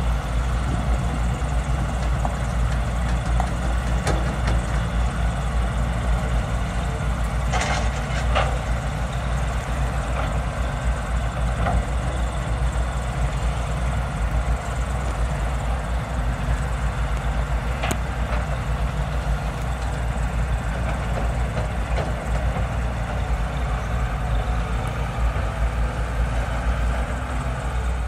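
Diesel engines of hydraulic excavators running steadily under digging load, a constant low rumble. A few short sharp clacks come about eight seconds in and again near eighteen seconds.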